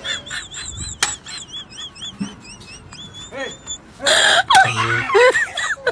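Cartoon-style chirping sound effect: a high warbling whistle repeating about four times a second, with a click about a second in. About four seconds in a loud noisy burst cuts in, followed by yelping, laughing voices.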